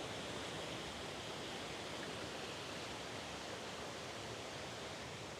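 Steady rush of a mountain river's flowing water, an even hiss without let-up.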